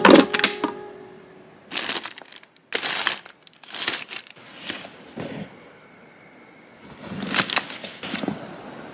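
Paper and plastic packaging rustling and crinkling in several short bursts as a hand rummages through a kraft paper bag of plastic-wrapped items, with a longer stretch of rustling near the end as a plastic tote bag is handled.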